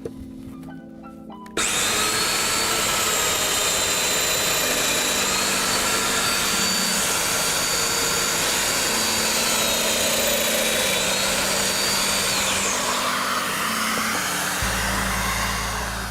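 Festool DF 500 DOMINO joiner with its dust extractor running, cutting mortises in a shelf panel: a steady high motor whine that starts abruptly about a second and a half in, dips slightly in pitch twice, then winds down near the end.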